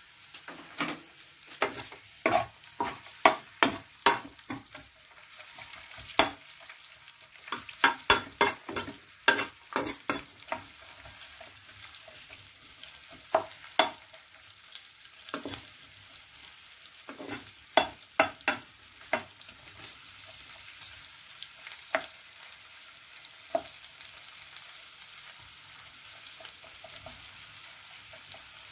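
Hot cooking oil sizzling in a pan while a cooking utensil knocks and scrapes against the pan in a quick run of sharp clicks. The clicks are dense at first, thin out after about ten seconds, and stop near the end, leaving the steady sizzle.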